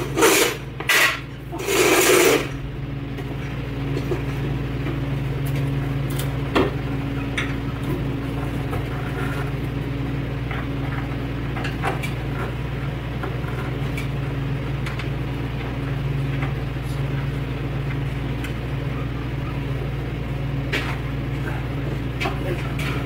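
A steady low hum, with a few faint scattered clicks and taps as the hood's hinge bolts are worked on.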